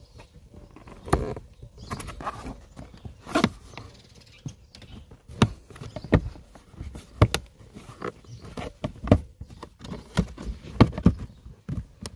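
Plastic interior trim panel being pressed and snapped back into place over the cabin-filter compartment: irregular sharp clicks and knocks, roughly one a second, with hand-on-plastic rubbing between them.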